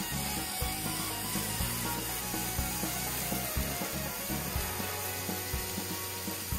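Background music with a bass line and a regular beat.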